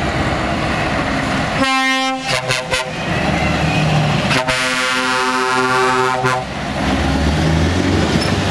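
Truck horn sounding over the running diesel engines of tractor units pulling out: a short blast with a few quick toots about two seconds in, then a longer blast of about two seconds near the middle.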